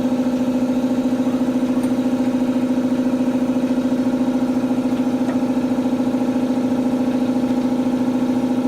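Air compressor running steadily, a fast, even pulsing hum, while it refills its tank for an air impact gun; it is slow to build pressure, a sign the compressor is too small for the job.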